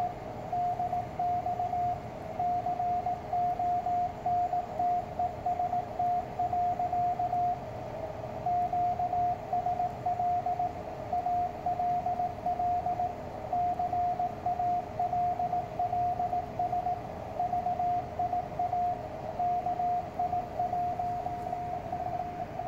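Morse code (CW) on an amateur radio receiver: a single steady tone keyed on and off in dots and dashes, with short pauses between words, over a steady hiss of band noise. It is the ARRL bulletin being sent in Morse.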